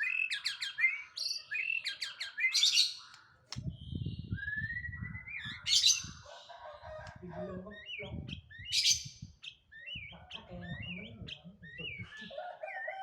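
White-rumped shama (murai batu) singing a fast, varied run of whistles, sliding notes and sharp chips, with loud high bursts about every three seconds. A low rumble comes and goes underneath.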